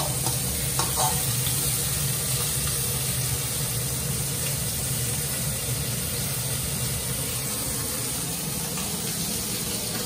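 Hot oil sizzling steadily in an enameled cast-iron Dutch oven covered with a mesh splatter screen, where beef shanks are searing, over a steady low hum. A couple of light clicks come about a second in.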